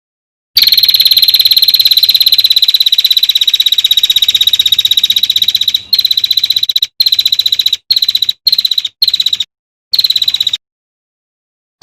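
Small songbird's rapid, dry, buzzing trill on one high pitch. It runs unbroken for about five seconds, then comes in a string of short bursts that cut off abruptly.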